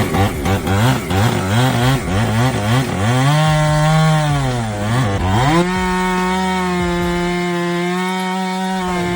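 Two-stroke chainsaw engine being revved in quick throttle blips, about two a second. It then climbs to high revs and is held there, dropping briefly once about five seconds in before returning to a steady high pitch. It stops abruptly near the end.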